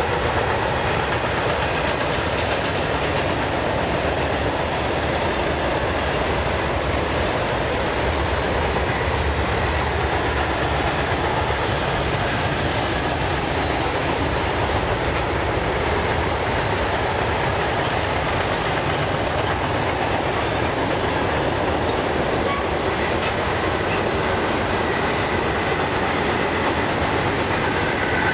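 CSX freight train of covered hopper cars rolling past, the steel wheels running on the rails in a steady, unbroken noise.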